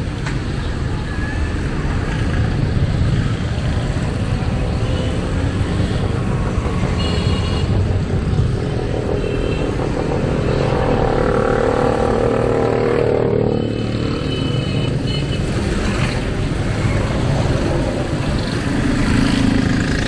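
Busy street traffic of motorcycles and auto-rickshaws, a steady din of small engines passing close by. There are a few short high-pitched beeps and a louder passing whine about halfway through.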